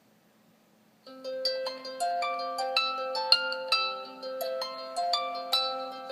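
Cell phone ringtone playing a harp-like melody of plucked notes, about four a second, starting about a second in.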